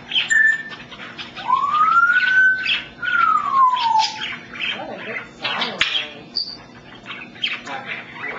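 African grey parrot whistling: about a second and a half in, a long whistle rises, then a second one falls, like a wolf whistle. Short clicks and chirps are scattered before and after.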